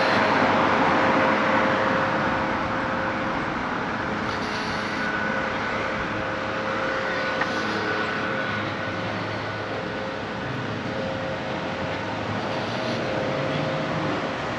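Steady road traffic noise, loudest in the first couple of seconds as a car passes close by, then settling into a continuous background hum.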